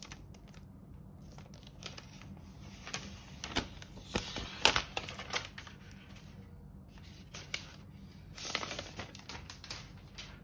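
Protective wrap sheet being slid and peeled off a new iPad Pro, crinkling and rustling in two spells, with light clicks and taps from handling the tablet; the louder spell is about four to five seconds in, and a shorter one comes near the end.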